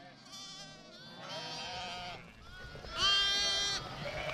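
Sheep bleating in a lambing pen around a ewe and her newborn lamb: three bleats, the third, about three seconds in, the loudest.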